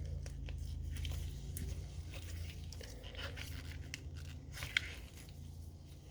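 Small metal clicks and scrapes of a Beretta Model 81 pistol's slide being pushed onto its frame during reassembly, with one sharper click a little before five seconds in. The slide is not seating. A steady low hum runs underneath.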